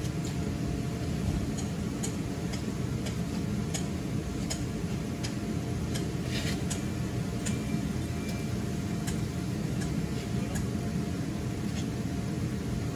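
Electric blower of an inflatable waterslide running steadily, keeping the slide inflated, with faint clicks now and then.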